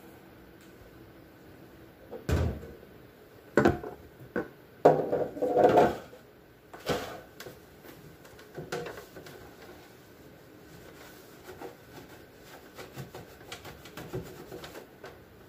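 Bottles and containers being handled and moved about in a refrigerator: a run of knocks and clunks in the first half, the loudest about five to six seconds in, then lighter clicks and rattles.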